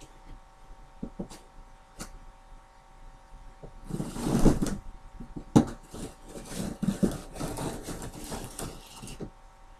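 Cardboard TV box being opened with a small knife: scattered clicks and knocks, a longer scraping rip about four seconds in as the blade runs through the packing tape, then more rustling and tapping of the cardboard.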